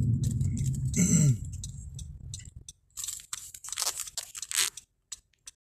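Road noise inside a moving car, with a brief falling tone about a second in, then the rumble drops away to scattered crackles and rustles. The sound cuts out completely near the end.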